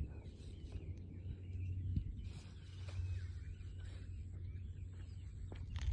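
Wind buffeting the phone's microphone as a steady low rumble, with faint bird chirps above it and a short louder gust near the end.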